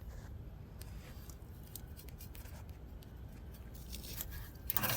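Faint scattered clicks and light scraping of a metal socket being handled and fitted against a corroded nut, with a few louder metal clinks right at the end.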